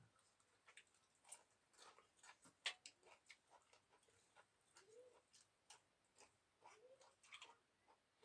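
Faint, scattered clicks and taps of people eating a rice meal, with one sharper click about a third of the way in and two short soft hums near the end.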